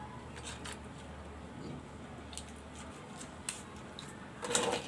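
Boiled scallop shells clicking and scraping as meat is picked out of them by hand, in scattered short clicks, with a louder noisy burst near the end.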